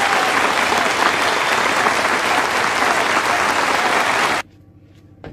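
Loud, steady rushing noise with no clear pitch that cuts off abruptly about four and a half seconds in.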